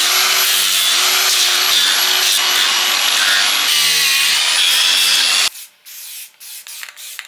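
Handheld power tool sanding a small wood carving, running steadily with a high whine, then cutting off suddenly about five and a half seconds in, followed by several short spurts of sanding.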